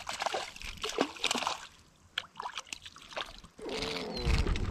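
Water splashing and sloshing in irregular bursts, with a lull about two seconds in.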